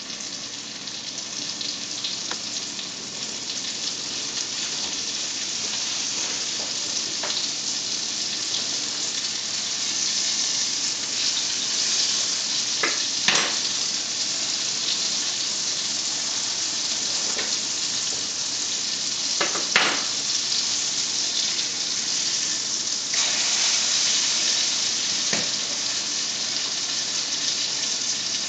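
Breaded northern pike fillets frying in butter in a nonstick pan: a steady, high sizzle, with a few sharp clicks and pops partway through.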